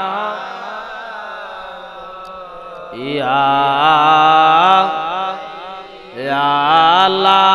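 A man chanting zikir into a microphone in long, drawn-out notes with a wavering, ornamented pitch. A quieter, fading stretch fills the first three seconds, then loud held phrases begin about three seconds and about six seconds in.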